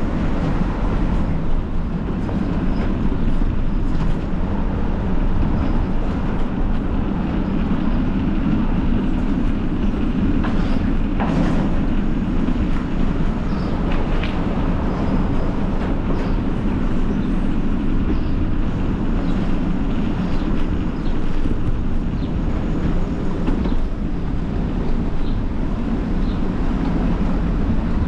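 Steady rumble of riding a bicycle down a street: wind rushing over the camera microphone and tyres rolling on rough pavement, with a few brief rattles about ten and fourteen seconds in.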